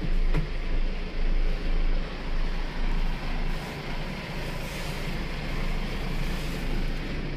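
A low mechanical hum, pulsing in level a little under twice a second for the first three seconds, then steadier.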